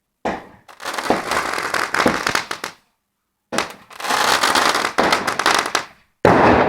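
Fireworks going off in rapid runs of crackling bangs, in three stretches broken by two short, abrupt drops to silence.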